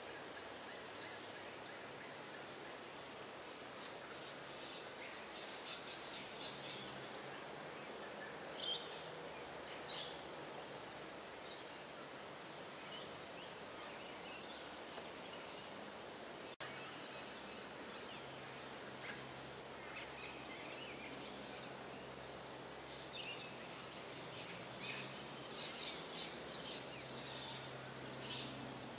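Steady high-pitched insect chorus, with short high bird calls about nine seconds in and again scattered through the last several seconds. A single sharp click comes just past the middle.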